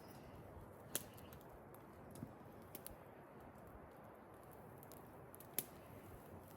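Faint, steady rush of wind in the trees, with a few sharp clicks: two clear ones about a second in and past the middle, and several fainter ones.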